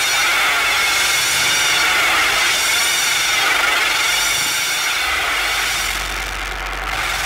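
Electronic noise music built from feedback: a loud, dense hiss laced with many faint steady tones, easing slightly about six seconds in.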